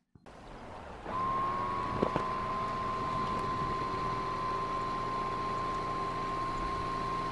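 A machine running steadily: a high, even whine over a low hum, coming up to full level about a second in, with a single click about two seconds in.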